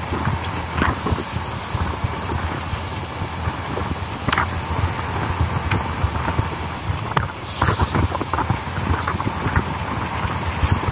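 Wind buffeting a phone's microphone on a moving motorbike, a steady rush with irregular gusty thumps over the low running of the bike and its tyres on the road.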